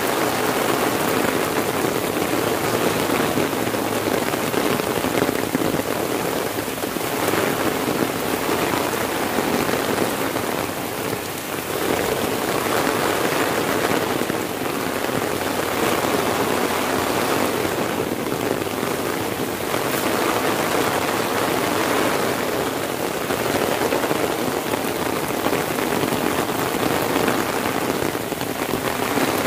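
Heavy rain falling steadily, drumming on an umbrella held overhead over a dense, even hiss of rain on the surrounding vegetation.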